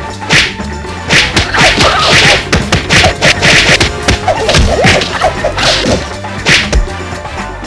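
Dubbed kung-fu-film fight sound effects: a rapid string of punch whacks and air swishes, a dozen or so in quick succession, over background music.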